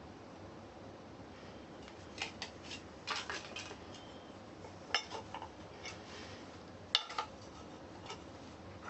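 Scattered metallic clinks and scrapes as a small tire is worked onto the Gotway Mten3's wheel rim by hand, with the sharpest clicks about five and seven seconds in.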